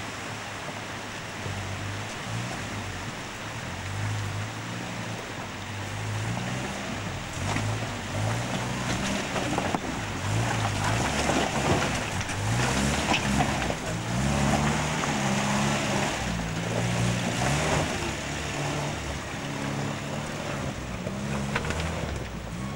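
Land Rover 4x4 engine revving up and down in steps as it drives out of a stream and climbs a rocky track, with water noise at first and the engine note louder from about a quarter of the way in.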